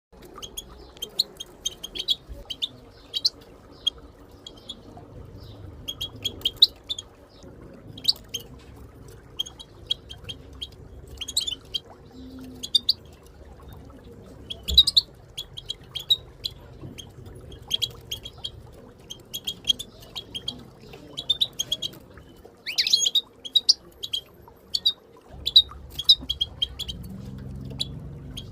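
European goldfinch contact calls: quick short chirps in irregular clusters, the twittering that keepers play to set silent goldfinches calling and singing.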